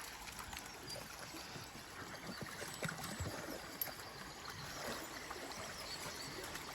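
Faint outdoor background: a low, even hiss with a few soft ticks and rustles scattered through it.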